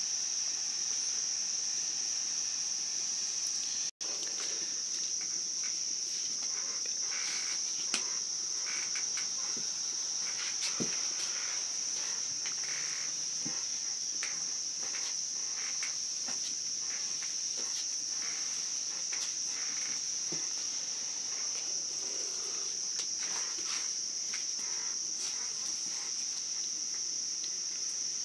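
Crickets chirring steadily in one continuous high-pitched band. Over it come scattered knocks and scrapes from a wooden cooking stick turning stiff ugali in a metal pot over a wood fire.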